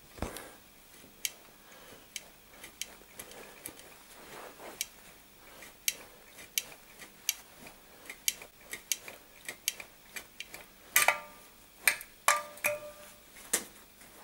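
Welded sheet-steel test piece being flexed back and forth by gloved hands to tear the weld apart, a destructive test of the weld. Irregular sharp metallic clicks throughout, with a few louder ringing clinks near the end.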